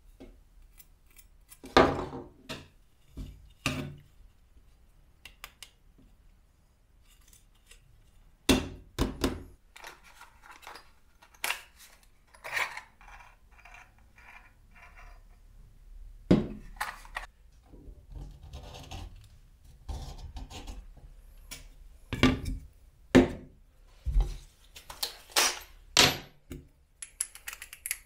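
Scattered knocks, clicks and metallic clinks as a steel knife, metal socket parts and plastic pieces are picked up, fitted together and set down on a workbench, with quiet gaps between.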